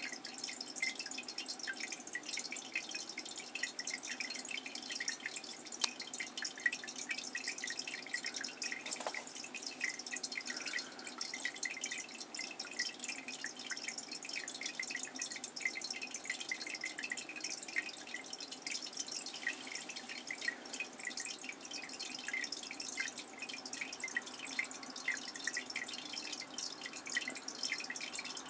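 Water dripping and trickling steadily, a dense run of small irregular drips.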